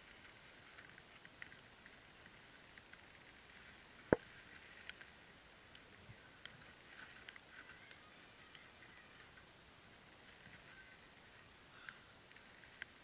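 Faint, scattered crackles and ticks from a small wood fire burning under a grill grate of chicken, with one sharper click about four seconds in.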